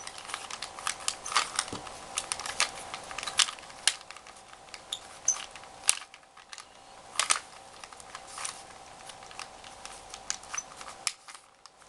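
3x3 Rubik's Cube being turned by hand: quick, irregular plastic clicks and clacks of the layers snapping round, several a second, over a faint steady hum. The clicking stops briefly near the end.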